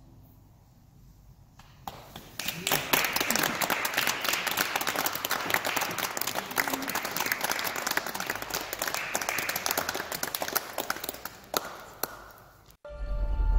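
Small audience applauding with many hands clapping. It starts about two seconds in, after a near-quiet moment, and cuts off suddenly near the end.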